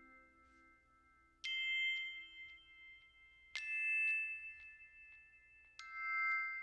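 Background music of bell-like chime notes: three notes struck about two seconds apart, each ringing on for a long time.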